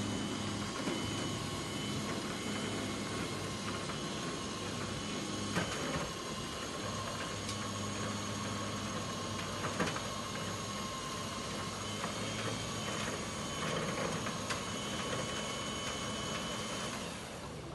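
A car transporter's winch and engine running as a van with a blown engine is pulled up the tilted bed: a steady mechanical whine over a low hum. There are a couple of sharp clunks about six and ten seconds in, and the whine stops near the end.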